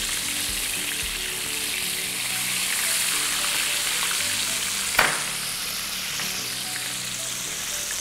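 Flour-dredged fish fillets sizzling steadily in hot oil in a stainless steel frying pan, with a single sharp tap about halfway through.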